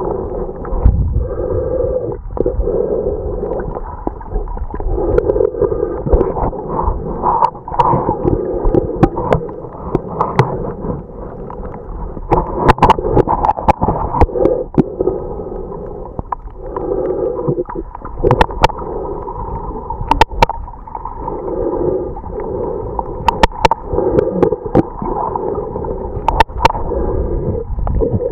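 Muffled underwater noise picked up by a camera in a waterproof housing as it moves through the water: a swirling, gurgling wash that swells and fades, with sharp clicks or taps every few seconds.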